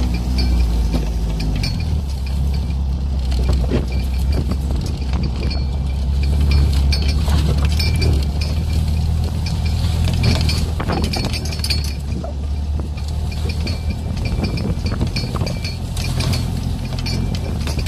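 Beach buggy driving, its engine a steady low drone, with loose gear rattling and clinking repeatedly as it bounces along.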